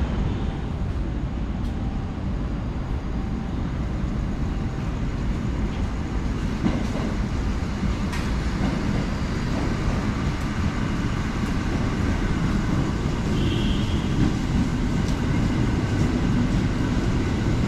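Passenger train running on rails: a steady low rumble with a few faint clicks, growing slightly louder toward the end.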